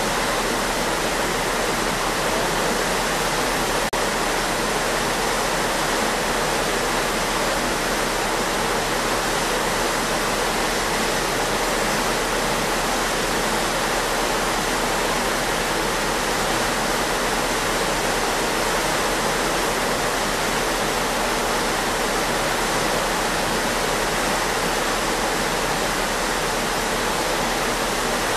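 Steady, even rush of churning water from a ship's wake behind the stern, with no change in level.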